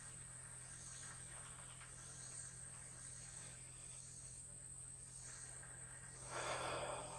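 Faint evening insect chorus, a high-pitched pulsing drone, over a low steady hum. About six seconds in, a short rough noise lasting under a second rises above it.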